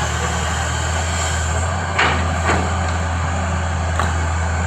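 Excavator's diesel engine running steadily, with three short knocks: two close together about two seconds in and one near the end.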